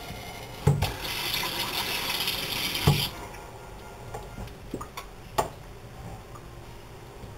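Water hissing from a kitchen sink's pull-out faucet head for about two seconds, starting with a knock about a second in and cutting off with another near three seconds. A few light clicks and knocks follow as the toy and faucet are handled at the sink.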